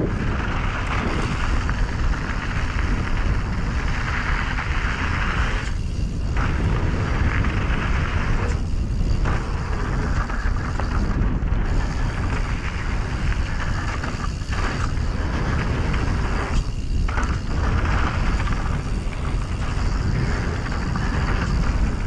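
Wind buffeting the microphone and tyres rumbling over a dirt trail as a mountain bike rides downhill at speed: a steady loud rushing noise that dips briefly several times.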